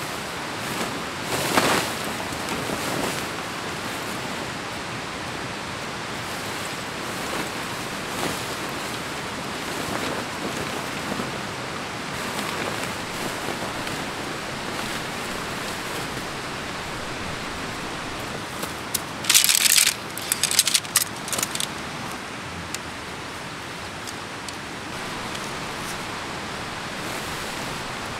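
Large black nylon tent fabric rustling and crackling as it is pulled out and spread on the ground, with a short burst near the start and a louder cluster of sharp crinkles about two-thirds of the way through, over a steady outdoor hiss like wind.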